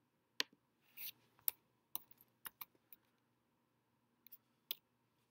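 Scattered, irregular clicks from a computer keyboard and mouse as text is edited, about a dozen taps in all, with one slightly longer scrape about a second in.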